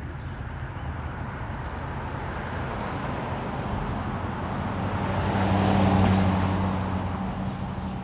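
Street traffic noise with a car passing close by. Its engine and tyre noise swells to a peak about six seconds in, then fades.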